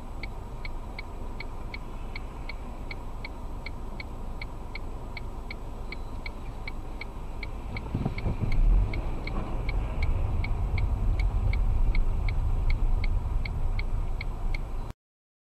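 A car's turn-signal indicator clicking steadily, about three ticks a second, inside the cabin over a low engine and road rumble. About eight seconds in there is a brief low thump and the rumble grows louder as the car moves off from the lights.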